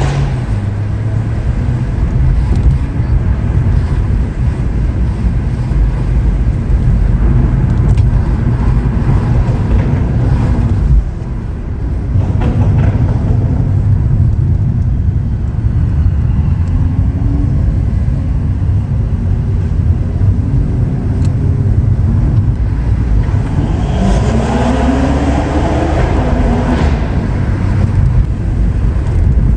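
Stage 2 tuned BMW M140i's 3.0-litre turbocharged B58 straight-six with a custom exhaust, driving under a heavy, steady rumble. Several times the revs climb in pitch under acceleration, most clearly about three-quarters of the way through, before dropping back.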